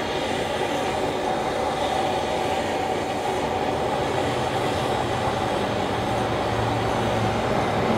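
Handheld gas torch flame blowing steadily on a lump of Japanese charcoal to light it: a continuous, even rushing hiss.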